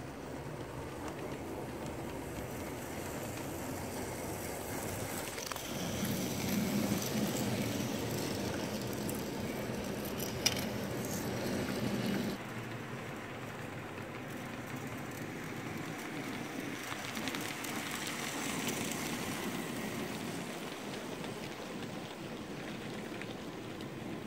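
Model train running on the layout's track: a steady rolling rattle of wheels with motor hum, louder for several seconds as it passes close, with one sharp click about ten seconds in.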